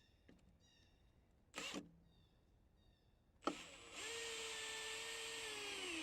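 Cordless drill driving a screw into a wooden cover board: a short burst about one and a half seconds in, then a steady motor whine for about two seconds, its pitch dropping near the end. Faint bird chirps in the background.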